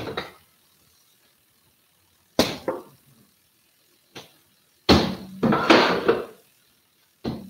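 A few sharp knocks and clattering sounds: one about two and a half seconds in, a longer clatter about five to six seconds in, and another near the end.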